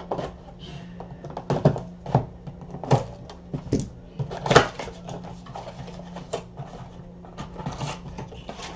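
A cardboard Panini Mosaic blaster box of trading cards being opened by hand: irregular taps, scrapes and rustles of the packaging, the sharpest about four and a half seconds in, over a steady low hum.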